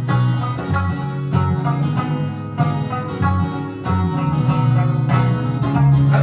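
Electric sanshin, the Okinawan three-stringed lute, plucked in a steady instrumental melody between sung lines, with sustained low notes underneath.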